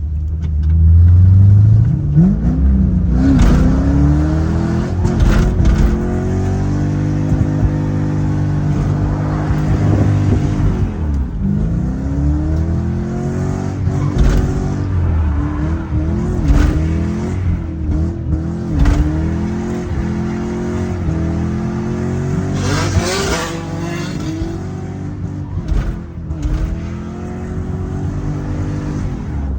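Car engine revving hard, its pitch rising and falling again and again as the throttle is worked, with a few short bursts of hissing noise.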